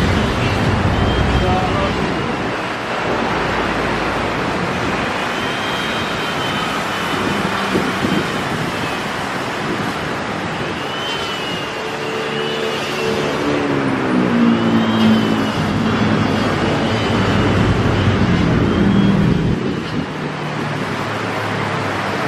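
Steady urban road traffic noise, with cars and motorbikes running by.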